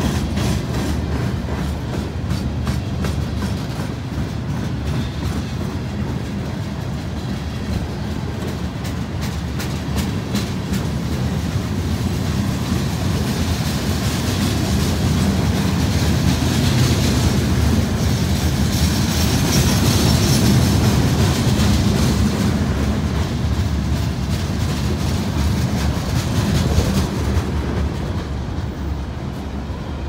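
Canadian Pacific freight train's boxcars and tank cars rolling past, a steady rumble with wheels clicking over rail joints. The rumble grows louder and hissier around the middle, then eases off near the end.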